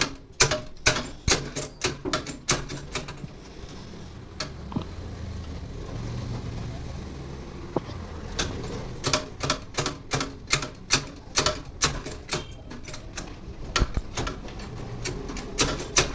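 Rapid, even mechanical clicking, about three clicks a second, from a press tool working the old bearing out of an AC compressor pulley. It pauses for a few seconds in the middle, where a low hum and a couple of single knocks are heard, then resumes.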